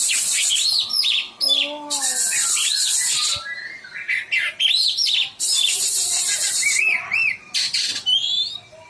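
Oriental magpie-robin (kacer) singing a loud, varied song. Quick arching whistled notes alternate with several harsh rasping churrs.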